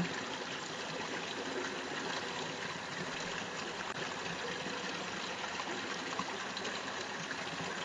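Low, steady rushing noise with no distinct events, like flowing water or a constant background hiss.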